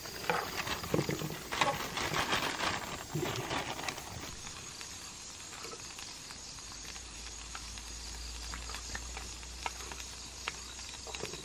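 Mantises and green chilies stir-frying in a wok over a wood fire: a noisy sizzle and crackle with chopsticks clicking and scraping against the pan, busiest in the first few seconds and then thinning to scattered clicks.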